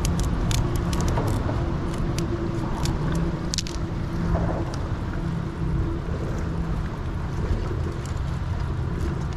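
Scissors snipping a mud crab for bait, a run of sharp clicks over the first few seconds, over a steady low rumble.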